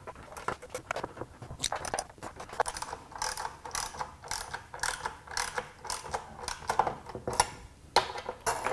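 Small hand ratchet clicking in quick, irregular runs as the anti-slosh tray and baffle bolts on an oil sump extension are run down hand tight.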